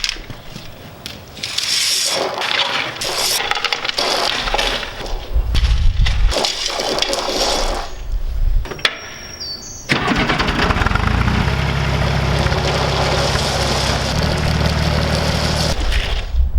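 Engine of a working machine running: uneven and noisy for the first several seconds, then about ten seconds in it steps up to a steady, even drone that holds to near the end.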